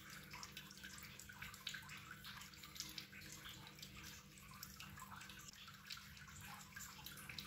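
Faint, irregular soft taps of a plastic plunger cookie cutter stamping small squares out of dough on a silicone baking mat, over a low steady hiss.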